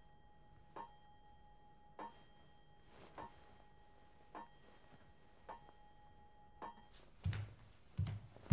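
Faint, slow clock ticks, evenly spaced about every 1.2 seconds, each with a short metallic ring. Near the end a few heavier low thuds come in.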